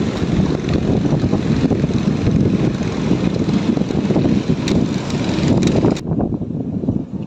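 Wind buffeting the microphone: a loud, rumbling, gusty noise that cuts off abruptly about six seconds in, followed by quieter, lighter wind noise.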